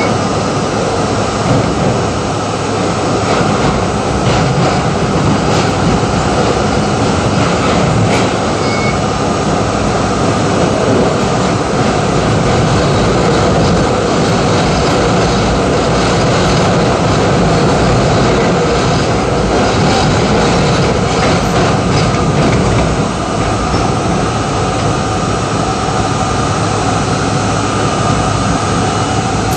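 R32 subway train running through a tunnel, heard from inside the car: a loud, steady rumble of wheels on rail and running gear, with a few faint clicks, as it rolls into a station near the end.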